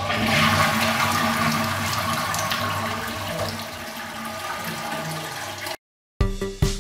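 Toilet flush tank flushing: a steady rush of water that eases off slowly, then cuts off suddenly near the end. Electronic music with a beat follows.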